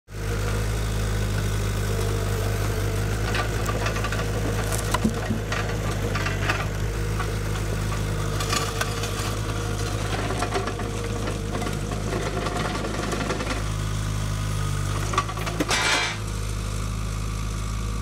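Engine of a compact tracked loader running steadily, with scattered clunks and knocks as its grapple handles a heavy log.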